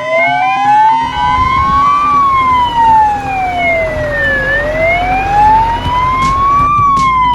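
Wailing emergency siren, sliding slowly up and down in pitch, about one full rise and fall every four and a half seconds, over a low rumble.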